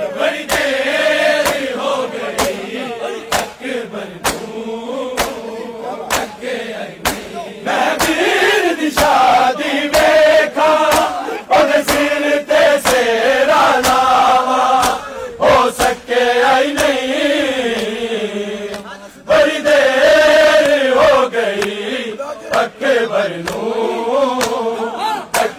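A crowd of men chanting a noha (Shia lament) together, with a steady beat of sharp slaps of hands on bare chests (matam), roughly one every two-thirds of a second.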